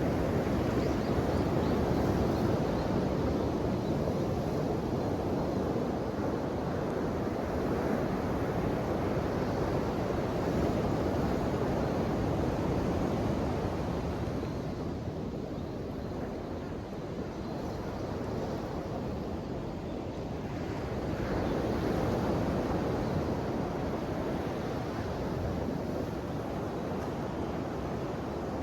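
Ocean waves surging and washing in a steady rush. The surf eases off through the middle and swells again with a new wave about three-quarters of the way through.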